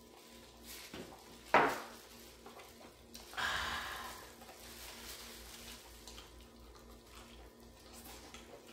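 Quiet eating sounds of people gnawing pork trotters with gloved hands: a sharp click about a second and a half in, and a brief hissing rustle a couple of seconds later.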